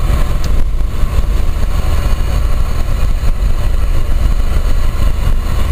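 Steady drone of a Fiat Ducato turbo-diesel camper heard from inside its cab at motorway cruising speed: a deep engine and road rumble with even road and wind noise over it.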